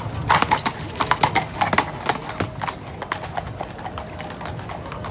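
Clip-clop of horses' shod hooves on hard ground, sharp strikes coming quickly in the first two seconds and then more spaced out.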